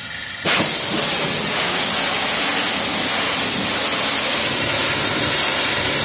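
High-pressure car-wash pump spraying water: about half a second in the jet opens with a sudden jump into a loud, steady hiss of water forced through the nozzle.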